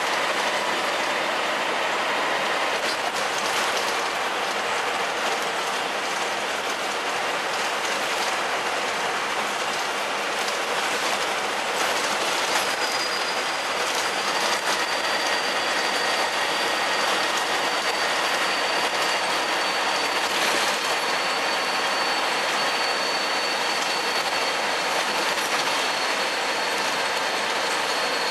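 Diesel engine of a stationary double-decker bus idling: a steady, even running noise, with a faint high whine that comes in about halfway through and slowly drops a little in pitch.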